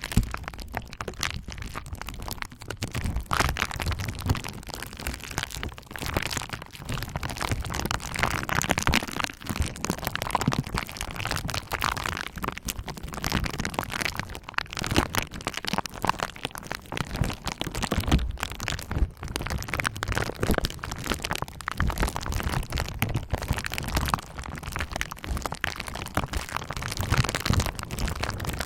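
Bubble wrap being pressed and rolled over with a roller, the bubbles popping and crackling in a dense, continuous stream of sharp cracks.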